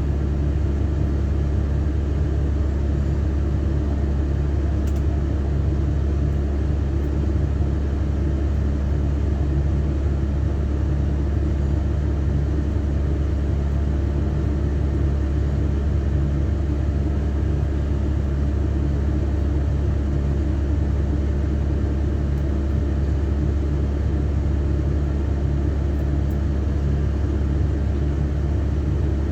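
Excavator's diesel engine running steadily at a constant speed, a deep, even drone with no change in pitch or level.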